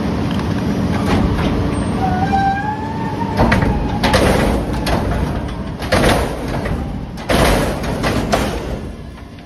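Rear-loading garbage truck's hydraulic lift tipping a steel commercial dumpster into the hopper, the truck's engine running underneath. A squeal rises in pitch about two seconds in, followed by several sharp metal bangs from the container as it dumps, and the din falls off near the end.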